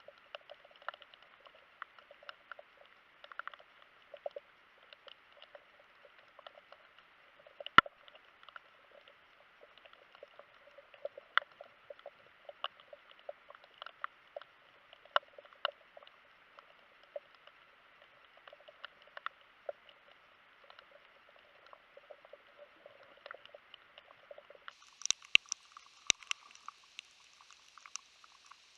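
Underwater crackling: a steady muffled hiss full of sharp, irregular clicks, as heard through a camera housing below the surface. About 25 seconds in, the hiss turns brighter and higher, with a few louder clicks.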